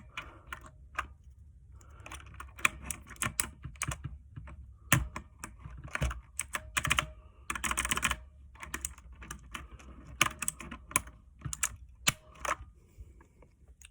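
Mechanical keyboard with clicky blue switches being typed on: sharp, loud clicks in irregular flurries, some in quick runs of keystrokes.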